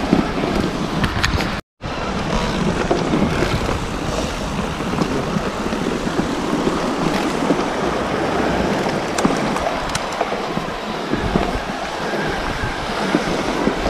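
Mountain bike ridden over a dirt and leaf-covered trail: a steady rush of tyre and wind noise on the microphone, with scattered knocks and rattles from the bike over bumps. The sound cuts out for an instant about two seconds in.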